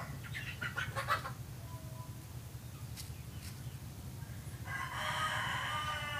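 A rooster crowing: a long call with several pitch lines begins about three-quarters of the way in and falls away at its end. A few short calls come in the first second, over a steady low hum.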